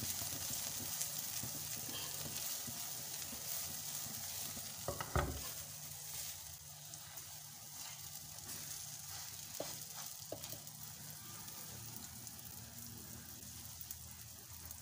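French toast (egg-soaked bread slices) sizzling in hot oil in a nonstick frying pan, the sizzle slowly getting quieter. A few short knocks from the silicone spatula on the pan, the loudest about five seconds in.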